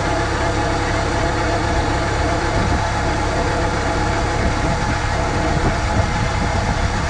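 Tractor engine running steadily at a constant speed while driving an irrigation water pump, the pump under pressure.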